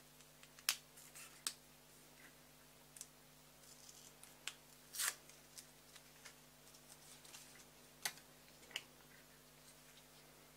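A few faint, sharp clicks and taps from small tools being handled, spaced irregularly, over a steady low hum.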